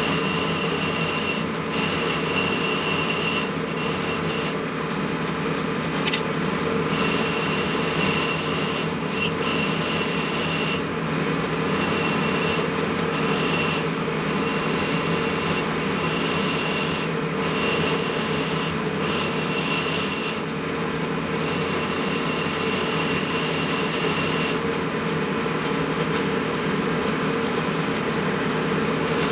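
Steady rasping of a power abrasive tool working on the old butcher saw, with a thin high whine cutting in and out every second or two.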